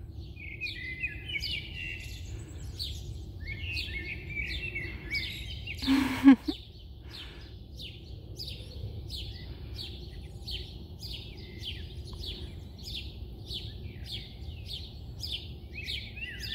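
Songbirds singing: quick trills early on, then a run of short falling chirps repeated about twice a second, over a steady low background rumble. A brief louder sound breaks in about six seconds in.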